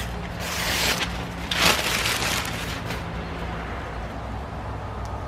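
Paper backing being peeled and torn off an iron-on adhesive (Heat Bond) patch: two rough paper-tearing, crinkling bursts in the first two seconds, then only a faint low hum.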